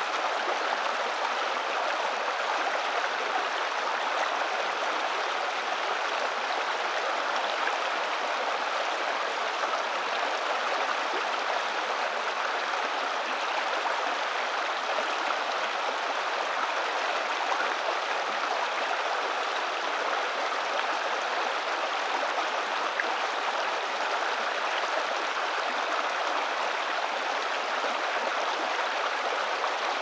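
Shallow stream babbling over rocks in a small riffle, a steady rushing of water.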